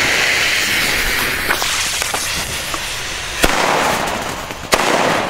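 Fuse of a Deto-Nation firework hissing and spraying sparks, then two sharp bangs about a second apart in the second half as its tubes fire, with hissing between them.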